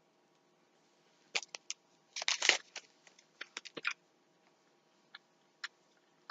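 Crunching and chewing on a bite of a Luna chocolate peanut butter protein bar. It comes as three short clusters of crackly clicks about one and a half, two and a half and three and a half seconds in, then a few stray clicks.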